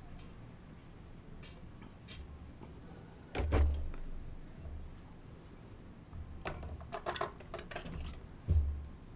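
Light clicks and taps of small repair tools and fingers handling a watch's flex cables, with two sharper knocks carrying a dull thump, one about three and a half seconds in and one near the end, and a run of quick clicks in between.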